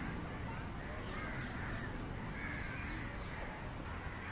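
Crows cawing over and over, roughly one call a second, over a steady low background noise.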